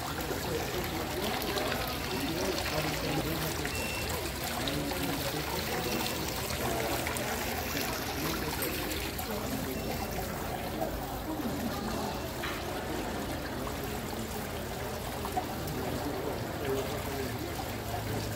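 Water running steadily down a decorative water-wall fountain into its basin, with indistinct voices murmuring underneath.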